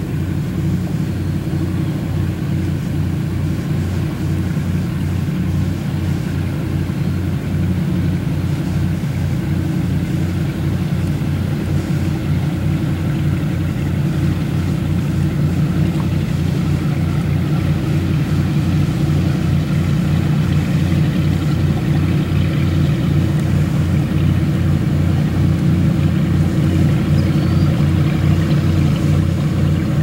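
An engine running steadily and close by, a low pulsing drone with no revving, growing slightly louder toward the end.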